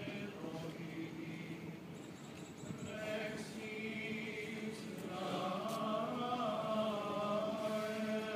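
Men's voices singing a chant together in unison, sustained notes that grow louder about five seconds in.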